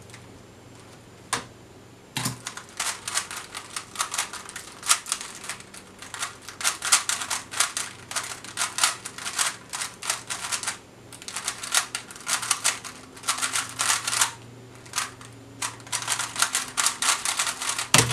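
Plastic Rubik's cube being turned one-handed: rapid runs of clicking moves separated by short pauses. A single sharp knock comes at the very end.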